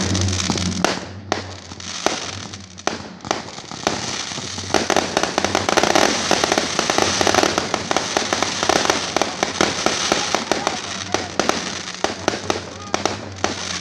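Aerial fireworks going off in a rapid string of bangs and crackles, densest from about five to eleven seconds in.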